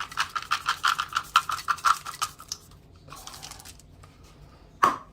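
Dry dog kibble being stirred into a runny beef stew: rapid scratchy clicking strokes that go on for about two and a half seconds, then fade to quiet, with one sharp knock near the end.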